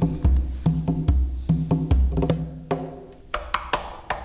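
Conga drum played with bare hands: three deep open tones, spaced less than a second apart, mixed with sharp slaps and finger taps. Near the end it turns to quicker, lighter taps.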